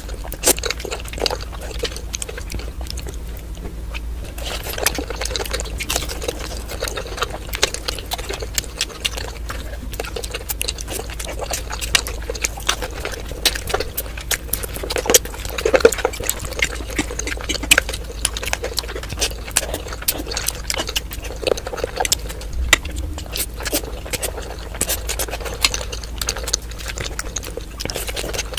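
Close-miked eating of spicy stir-fried noodles and fried chicken: wet chewing, slurping and mouth smacks, with many sharp clicks throughout.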